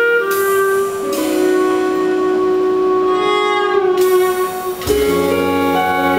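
Live ensemble of clarinet, electric guitar, cello and double bass playing slow, sustained ambient chords. The held notes shift about a second in, and a new, fuller chord with low notes comes in about five seconds in.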